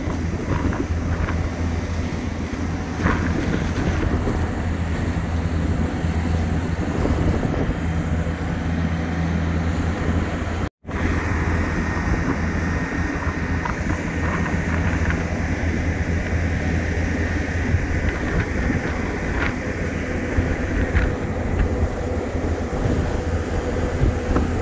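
Steady low drone of a large mobile boat hoist's diesel engine running, with wind buffeting the microphone. The sound drops out for an instant near the middle.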